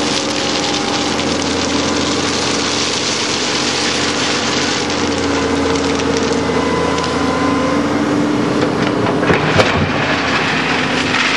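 Wheeled excavator's diesel engine running with its hydraulics working, a steady machine noise whose note shifts as the boom swings. Near the end the steel bucket digs into a trailer of stone, with crunching and a few sharp knocks.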